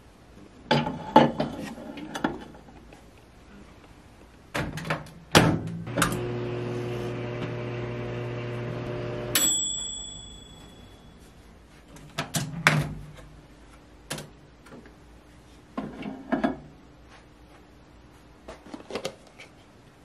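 Dial-timer microwave oven running with a steady hum for a few seconds, then stopping with a single ding. Before and after it come clicks and clatter from the microwave door and a plastic container and lid being handled.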